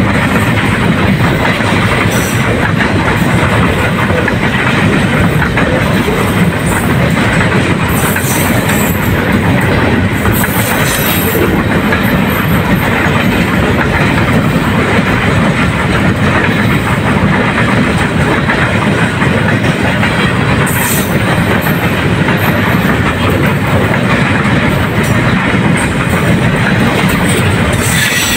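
Container freight train passing through at speed, a loud, steady rolling noise of the wagons' wheels on the rails, with a few brief high-pitched squeaks.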